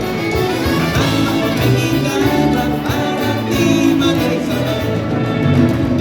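Live band playing a Latin dance song, with singing over the full band.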